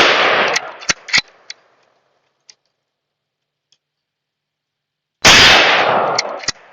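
Two shots from a Zastava M85 Mini Mauser bolt-action rifle, each with a long echoing tail. The first shot comes right at the start and the second about five seconds in, with a couple of short sharp clicks about a second after the first.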